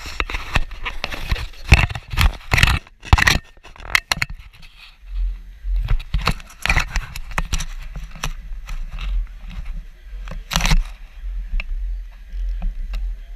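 A run of sharp knocks and scrapes close to the microphone in the first four seconds, then a low steady rumble with scattered clicks and one more loud scrape about ten and a half seconds in.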